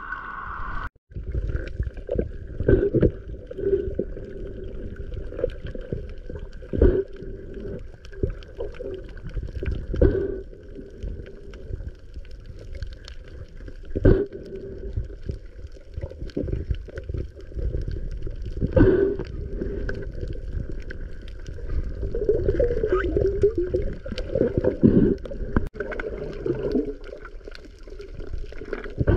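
Water gurgling and sloshing over a steady hum, with sharp knocks every few seconds.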